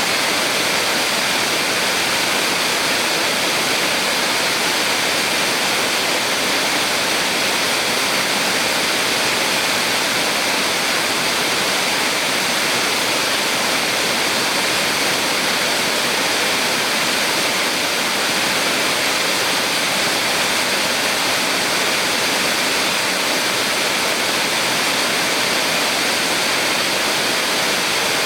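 Small waterfall on a mountain stream: water splashing steadily over the falls, a constant rush with no change.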